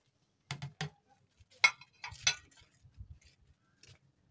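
White ceramic plates clinking as they are set down on stacked plates and charger plates: four sharp clinks in the first two and a half seconds, then a few fainter knocks.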